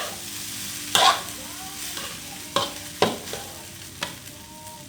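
Metal spatula stirring and scooping fried rice in a wok over a low sizzle, clanking sharply against the pan about four times.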